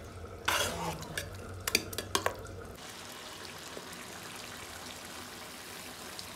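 Metal spoon stirring thick chicken gravy in a pot, scraping and clinking against the pot in a few strokes over the first three seconds. After that only a faint steady hiss remains.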